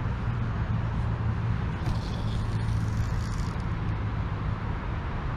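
Wind buffeting the microphone: a steady low rumble with no clear events.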